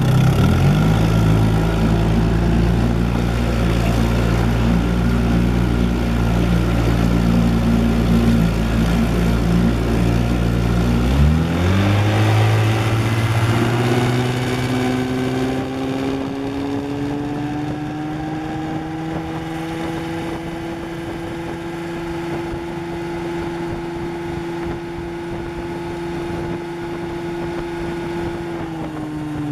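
1957 Johnson 18 hp Sea-Horse two-cylinder two-stroke outboard running at low throttle, then opened up about eleven seconds in. Its pitch climbs quickly and settles into a steady high-speed note, then begins to drop just before the end as the throttle eases.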